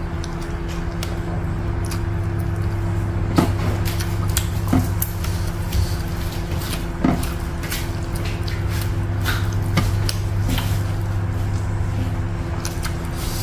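Close-miked eating sounds: chewing and wet mouth clicks, with fingers mixing rice on a plate and a few sharp clicks, over a steady low hum.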